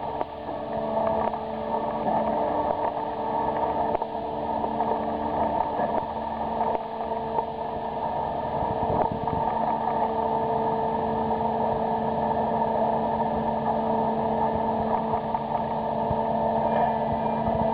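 Crane hoist machinery running with a steady mechanical drone and a few held tones. One of the tones drops out for a couple of seconds about a third of the way in, then returns.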